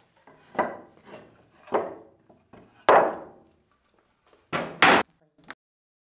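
Heavy live-edge wooden slabs being handled and set down, knocking against each other and a tabletop: three separate wooden thuds about a second apart, the loudest near three seconds in, then a short harsher scrape and knock near five seconds.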